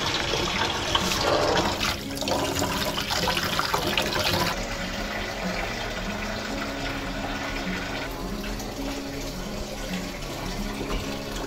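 Tap water running over purple cauliflower florets in a colander: a strong splashing rush for the first four and a half seconds, then a softer steady hiss.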